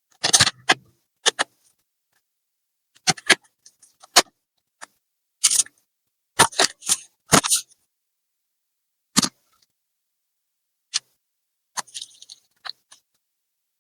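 Irregular sharp clicks, taps and light rattles of laptop parts and small tools being handled, coming in short clusters with silence between them, the busiest stretch about six to eight seconds in.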